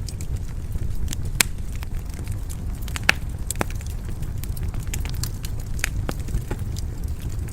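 Wood fire crackling in a fireplace: sharp, irregular pops and snaps over a steady low rumble of the flames.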